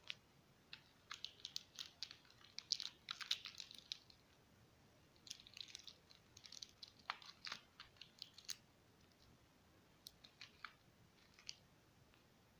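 Faint crinkling and crackling of plastic chocolate-bar wrappers being picked up and handled, in three bursts of quick crackles.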